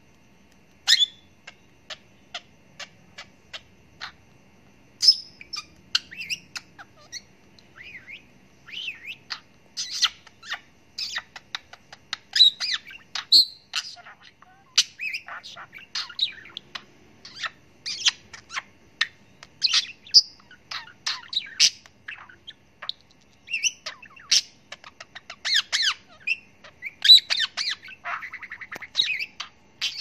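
A king budgie (exhibition budgerigar) chattering. It starts with sparse single clicks, then from about five seconds in gives a fast, dense run of short high chirps and squawks.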